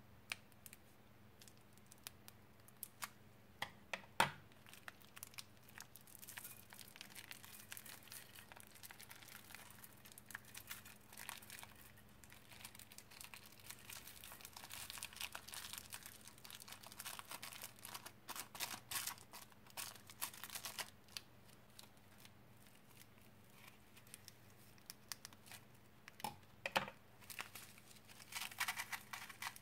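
Small thin plastic bags rustling as fingers open, squeeze and empty them, with a few sharp scissor snips cutting a bag open in the first few seconds.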